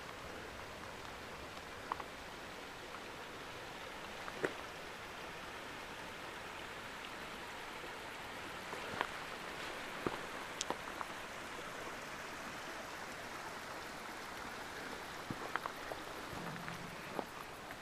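Steady rush of running water from a mountain stream, with a few scattered light clicks over it.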